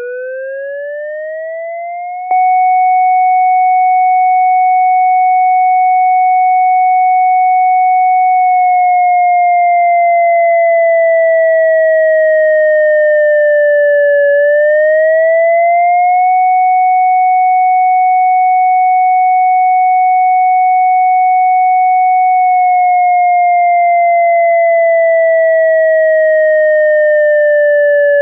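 Synthesized electronic siren from an ASC digital siren controller sounding its Attack signal: a clean, loud tone that winds up in pitch, jumps louder about two seconds in, and holds high. It then slowly sags in pitch and quickly winds back up, repeating about every fourteen seconds.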